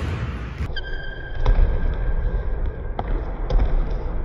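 Basketball bouncing on a hardwood gym floor, a few separate dribbles, over a steady high-pitched ringing tone.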